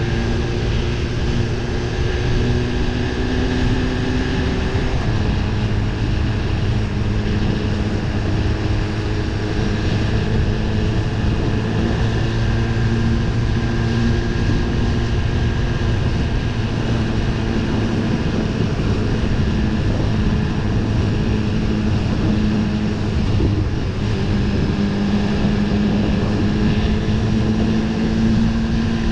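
BMW S1000RR motorcycle's inline-four engine running at a steady cruise, its note drifting gently up and down with small throttle changes, over a constant rush of wind and road noise.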